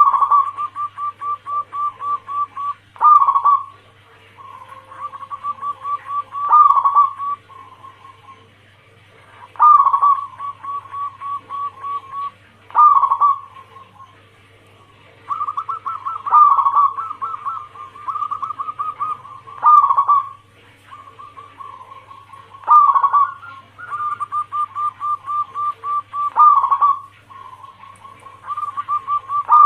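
Zebra doves (perkutut) cooing: phrases repeat about every three seconds, each a loud opening coo followed by a quick run of short pulsing notes, about five a second. A steady low hum runs underneath.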